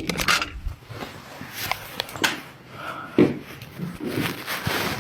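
Handling noise from electrical wire being worked out of a wall conduit after it snapped: scattered clicks, scrapes and rustles at irregular intervals.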